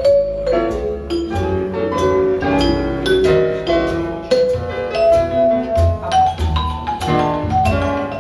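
Recorded music played over Kiom Sonata 15 stacked loudspeakers in a room: a melody of struck, ringing notes over bass notes, playing without a break.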